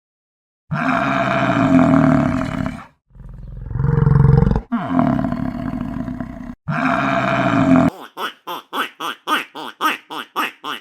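Several long, loud, low calls from a bovine, cow or buffalo lowing, separated by abrupt cuts. Near the end this gives way to a rapid series of short calls that fall in pitch, about four a second.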